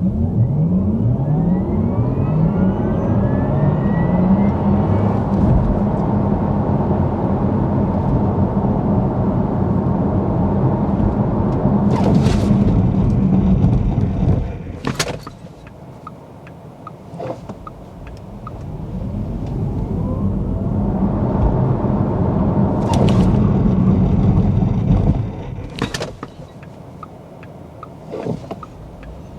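Porsche Taycan Cross Turismo 4 electric car accelerating hard, heard from inside the cabin: a rising electric-motor whine over heavy tyre and road rumble from its winter tyres, which dies away about 14 seconds in as the car slows. A second run builds up the same way from around 19 seconds and drops off again near the end, with a few sharp clicks along the way.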